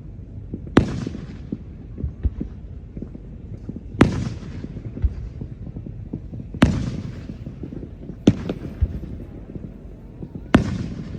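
Fireworks exploding: five sharp bangs a few seconds apart, each fading out over about a second, with fainter pops and thuds between.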